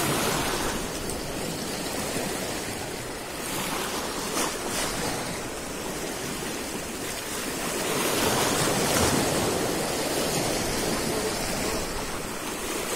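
Small sea waves washing and breaking over a low concrete breakwater, a steady surf that swells louder about eight seconds in.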